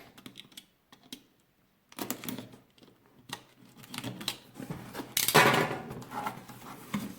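A product box being opened and its packaging handled: scattered light taps and clicks, with a louder rustle or scrape of cardboard and packaging a little over five seconds in.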